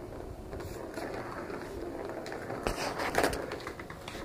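Plastic ball-in-track cat toy rattling and knocking as a cat bats at the ball, with a louder cluster of knocks about three seconds in.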